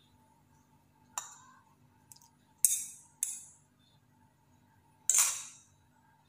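A metal fork and a plastic cup clinking against a ceramic mixing bowl while egg is poured onto flour. There are four short, sharp clinks, each ringing briefly, and the loudest comes about five seconds in.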